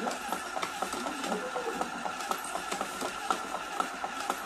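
Small electric cigarette-rolling (tobacco-filling) machine running, a steady whir with a quick, irregular run of sharp mechanical clicks.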